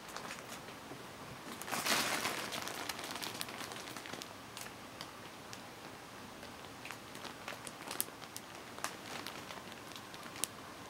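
A clear plastic bag crinkling and crackling as a packaged pet bed is handled. It is loudest about two seconds in, then breaks into scattered sharp crackles.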